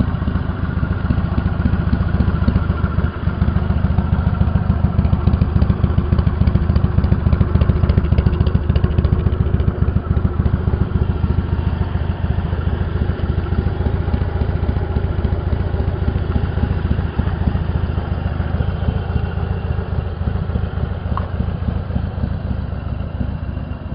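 1999 Harley-Davidson Softail Standard's air-cooled Evolution V-twin idling steadily, a little louder a few seconds in.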